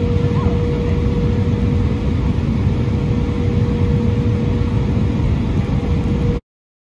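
Embraer E170 jet idling as it taxis, heard inside the cabin: a steady low rumble and hiss with a constant whine, cutting off suddenly near the end.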